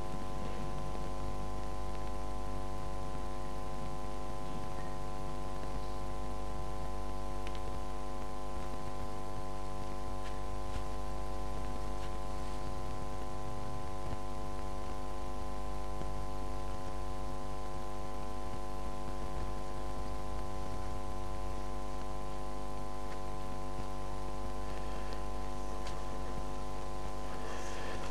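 Steady electrical mains hum with many even overtones over a faint hiss, and a faint brief rustle near the end.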